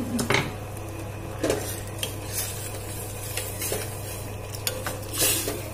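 Steel ladle stirring a pot of thin rasam, clinking and scraping against the stainless steel pot several times at irregular intervals.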